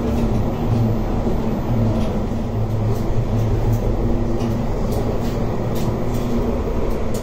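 CAF Urbos 3 tram heard from inside while running along the track: a steady rumble with a low running hum, and a few light clicks from about three seconds in.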